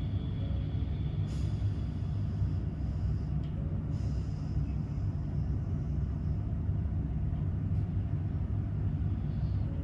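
Steady low rumble of background noise at an even level.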